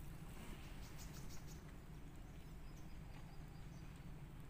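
Faint outdoor background: a low steady hum with scattered short, high chirps and ticks, most of them in the first second and a half.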